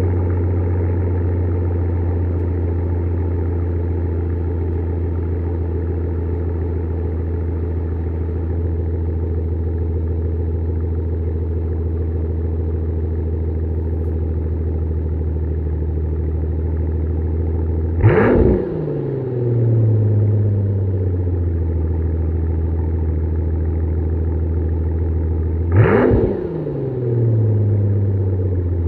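Mercedes-Benz S65 AMG's twin-turbo V12 idling from the exhaust at the rear bumper on a cold start, running rough with a misfire after sitting for two weeks. It is revved twice, about two-thirds of the way in and again near the end; each time the pitch jumps up sharply and falls back to idle over a couple of seconds.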